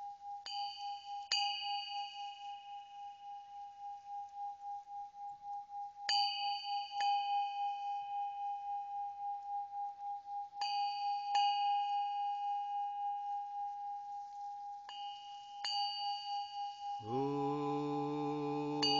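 Bells struck in pairs, four times, each pair ringing out over a steady, wavering ringing tone. About two seconds before the end a low, sustained chanted drone sets in beneath them.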